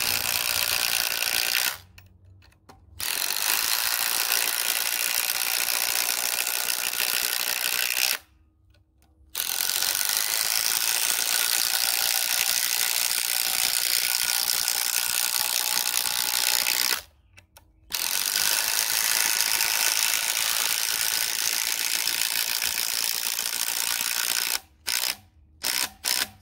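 Makita 18V impact driver hammering under load in four long runs, with a short stop between each. A few brief stop-start bursts follow near the end.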